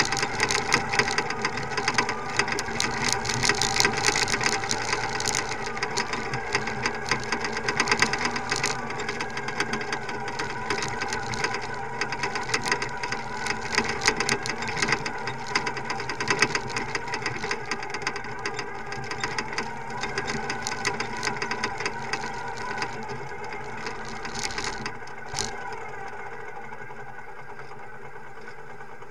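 Motorcycle engine running at low speed, with frequent clicks and rattles through the first half; it runs quieter and steadier near the end.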